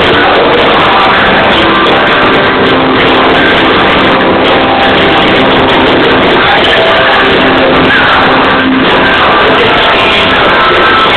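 A live band playing loud music, recorded on a mobile phone whose microphone overloads, so the sound is distorted and held at a flat, pinned level.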